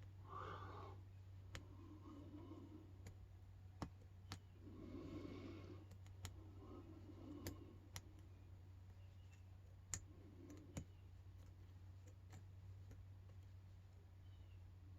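Faint, irregular clicks of a hook pick working the pins of a small brass LSDA padlock during single-pin picking, about a dozen over the span, with soft rustling of the lock being handled and a low steady hum underneath.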